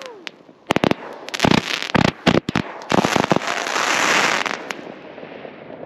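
Shogun Pandora's Box 25-shot fireworks cake firing: clusters of sharp cracking reports over the first two and a half seconds, then a dense crackling hiss about three seconds in that fades out before the end.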